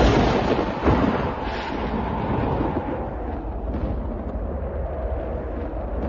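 Thunder: a loud clap right at the start and a second sharp crack about a second in, then a long rumble that settles into a steady low roll.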